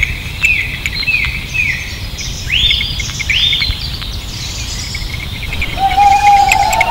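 Bird calls: a run of short, falling chirps about every half second, then two louder rising-and-falling chirps around the third second, and a longer, lower call starting near the end. A steady low background noise lies under them.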